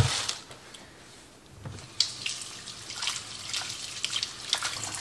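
Kitchen faucet running as yellow potatoes are rinsed and rubbed by hand under the stream, water splashing into a metal bowl in the sink. The water starts about two seconds in.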